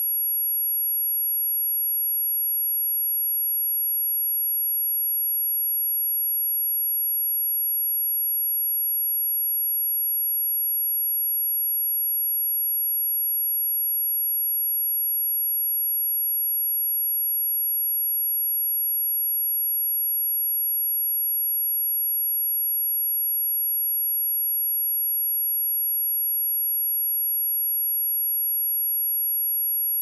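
A steady 11365 Hz sine-wave test tone: one high, piercing pitch held without change.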